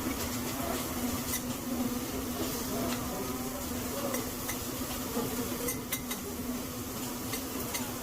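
A steady buzzing hum at a hibachi grill table, with scattered light clicks and clinks of metal utensils.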